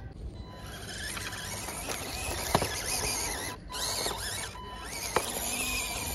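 Electric motor and gears of a radio-controlled Suzuki Jimny scale model whining, rising and falling in pitch as it drives, with two sharp clicks about two and a half and five seconds in.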